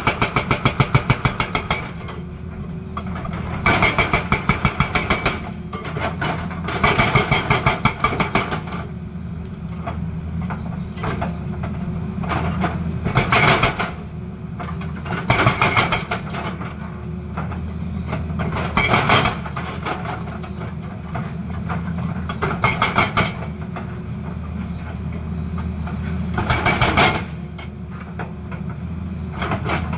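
Hydraulic rock breaker on a Tata Hitachi excavator hammering rock in repeated bursts of rapid blows, each one to two seconds long, about eight times. The excavator's engine runs steadily in between.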